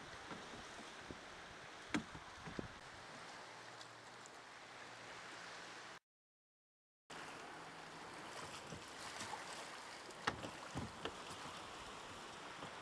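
Sea water sloshing and lapping against rocks and a small boat, with a few sharp knocks. The sound cuts out completely for about a second midway.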